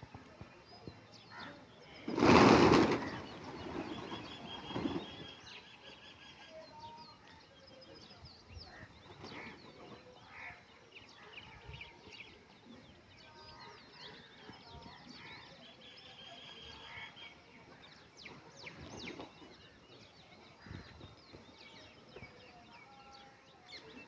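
Rock pigeons' wings flapping: a loud flurry about two seconds in, then smaller flutters, with faint bird chirps in the background.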